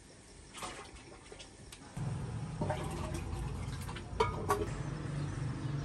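A ladle scooping and pouring broth, with a few sharp metal clinks against the pot. A steady low hum joins from about two seconds in.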